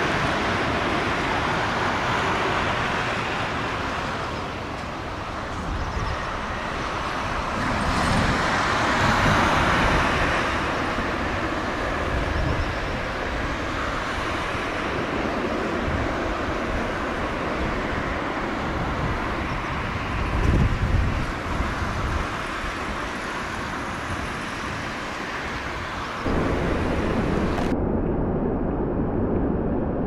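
Boeing 777-300ER's GE90 jet engines running on a landing, heard through gusty wind buffeting the microphone. A louder burst of low rumble comes about 20 seconds in, and the sound changes abruptly near the end.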